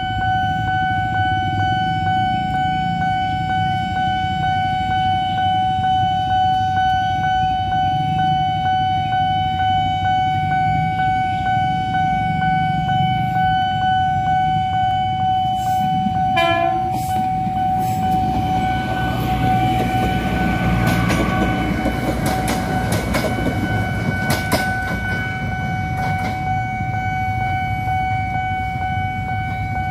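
A level-crossing warning alarm sounds steadily over the rumble of an approaching diesel train. About halfway through there is a short horn blast. After that the train's wheels rumble and clatter as it passes along the rails.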